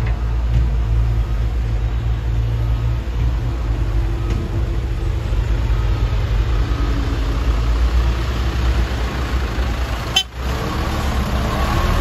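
Heavy diesel engines of excavators and a dump truck running with a steady low rumble. There is a brief break about ten seconds in, then a rising whine near the end.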